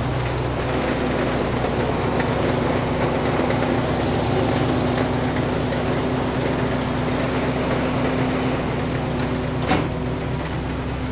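1964 Buick LeSabre's V8 running steadily with a noisy knock that the owner puts down to the torque converter, likely loose torque converter bolts. A single sharp click comes near the end.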